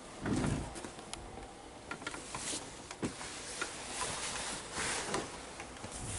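Handling noise from a moving phone camera: a low thump about half a second in, then light clicks and knocks and short rustles of fabric, such as a curtain being pushed aside.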